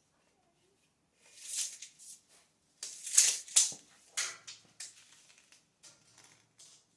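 Irregular rustling and scraping of things being handled, in a string of short noisy bursts, loudest about three seconds in.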